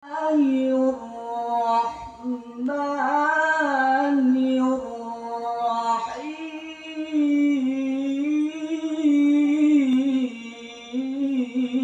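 A man reciting the Quran in the melodic tilawah style through a microphone, with long held notes ornamented with wavering turns and short pauses for breath.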